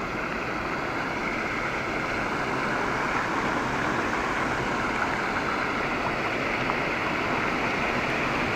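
Heavy rain pouring down steadily, getting a little louder a couple of seconds in.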